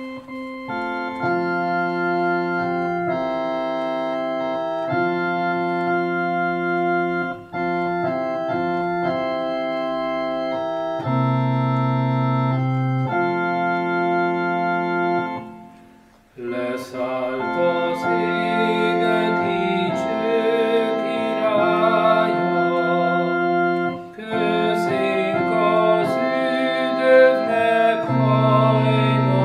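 Electronic organ playing slow sustained chords as an introduction. After a short break about halfway through, the organ resumes with a singing voice that carries the melody over it.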